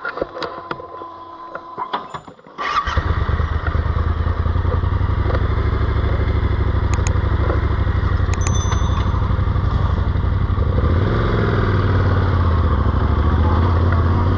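Yamaha Ténéré 700's 689 cc parallel-twin engine starting about two and a half seconds in, after a few clicks and a faint steady hum, then idling steadily. It is the hot-engine start that succeeds after the fuel cap has been opened and closed.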